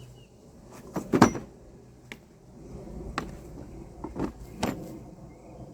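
Five or so sharp metal clinks and knocks from hand tools being handled, a thread tap among them, the loudest about a second in.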